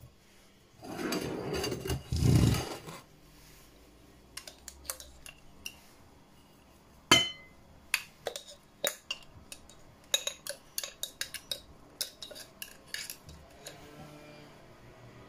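Kitchen handling of a small electric chopper: a loud rough scraping and rustling about a second in as the blade and bowl are worked loose, then a scattered run of sharp clicks and taps as the chopper bowl and blade knock against the glass bowl while the ground crumbs are tipped and tapped out.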